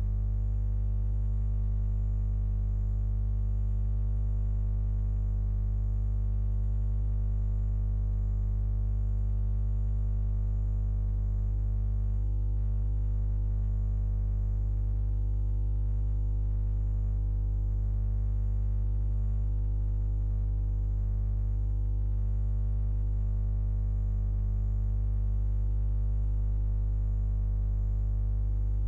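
A steady, unchanging low hum made of several held tones, with no rhythm or breaks.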